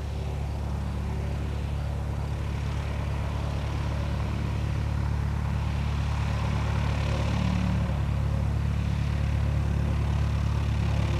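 Cessna 172N Skyhawk's four-cylinder Lycoming piston engine and propeller running steadily at low taxi power, growing gradually louder as the plane taxis closer.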